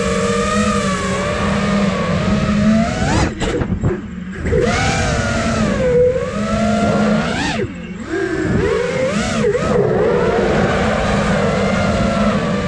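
Brushless motors and propellers of a 5-inch FPV quadcopter (iFlight Nazgul Evoque F5) whining, heard from the drone's onboard camera. The pitch holds steady for about three seconds, then swoops up and down with throttle, dropping away briefly twice, about three and a half and seven and a half seconds in.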